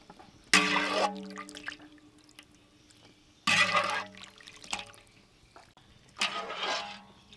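Metal utensil knocking and scraping against a stainless steel wok while stirring seafood in water, with some splashing. The wok rings on after each knock. This happens three times.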